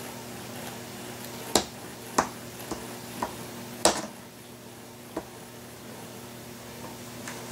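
About six sharp clicks and taps, three of them loud, the first of these about a second and a half in and the last about four seconds in, over a steady low hum.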